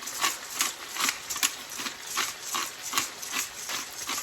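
Pepper being added to the pan: a regular run of short clicks, about three to four a second.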